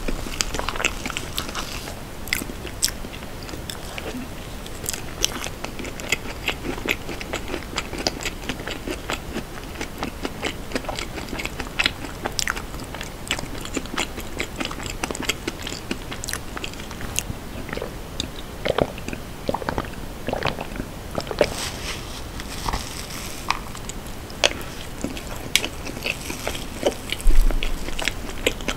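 Close-miked eating sounds: chewing and wet mouth clicks on soft cream tiramisu, with a wooden spoon scraping and tapping in a plastic cup. A louder bump comes near the end.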